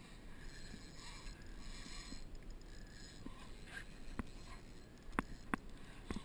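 Quiet open-water background aboard a small fishing boat with four sharp knocks in the second half, two of them close together.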